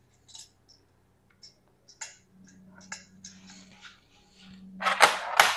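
Scattered faint clicks and light metallic taps of small parts and tools being handled around an engine's intake manifold, with a louder rustling scrape about five seconds in.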